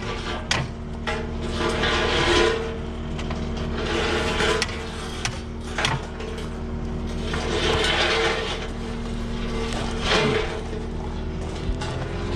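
Cat 259D compact track loader's diesel engine running at a steady idle, with sharp metal clanks and a few longer rasping, scraping passages as the heavy steel pallet forks are handled and set up.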